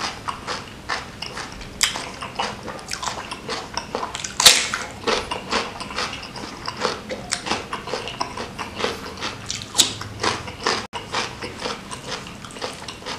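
Close-miked chewing of a mouthful of food: a steady run of irregular wet mouth clicks and smacks, with two sharper, louder bites, one about four and a half seconds in and one near ten seconds.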